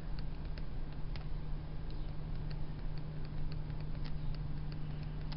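Steady low electrical hum with faint, irregular light clicks and taps from handwriting annotations being drawn onto the slide.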